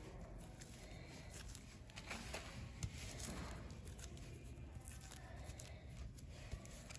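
Faint rustling and light scraping of fingers pulling corn silk off a husked ear of sweet corn, with a small click a little before three seconds in.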